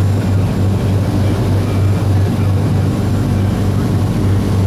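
Ship's engine running with a steady low hum over a constant rush of noise.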